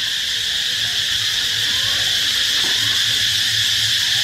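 A steady, high-pitched chorus of insects, droning without a break.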